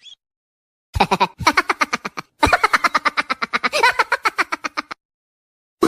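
Laughing sound effect: two runs of very rapid, pitched ha-ha-ha pulses, a short one and then a longer one, cutting off abruptly.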